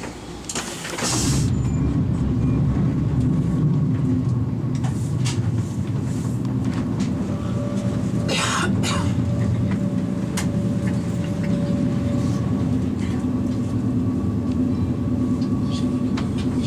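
Heard from inside an ICE 2 high-speed train carriage: a short whoosh about a second in, then the loud, steady rumble of a freight train of tank and container wagons passing on the next track. It sits over the ICE's own running noise, with scattered clicks from the wheels and another brief whoosh partway through.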